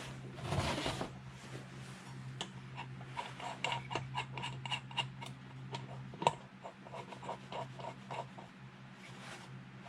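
A timing wheel being fitted onto a chainsaw engine's crankshaft: a brief scrape, then a run of light, irregular metallic clicks and taps with a faint ring. There is one louder click about six seconds in, and a low steady hum stops at the same moment.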